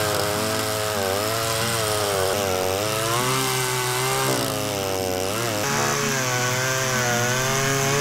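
Husqvarna two-stroke chainsaw cutting through a thick log. The engine runs without a break, its pitch rising and falling repeatedly as the chain bites into the wood and frees up again.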